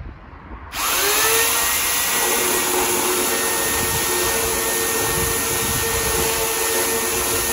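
Corded electric chainsaw starting up about a second in, quickly rising to full speed and then running with a steady high whine as it cuts into a wooden table leg.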